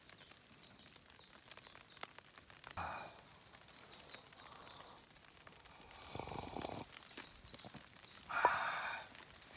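A small bird calling in runs of quick, high, downward-curving notes, three runs in all. Brief rustling handling noises come in between, the loudest shortly before the end.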